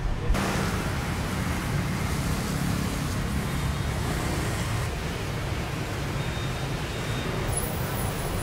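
Steady city road traffic: the hum and hiss of passing cars and motorbikes.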